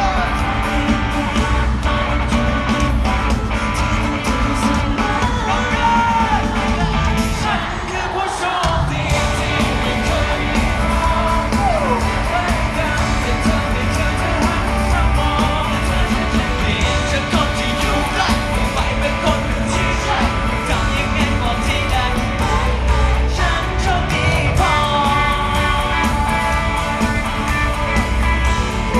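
Live pop song over a concert PA in a large hall: male voices singing into microphones over full band backing with guitar. The bass drops out briefly about a third of the way in.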